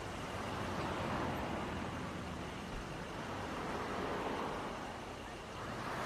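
Street traffic: cars passing by, the noise swelling as one goes past about a second in, another around four seconds, and a third rising near the end.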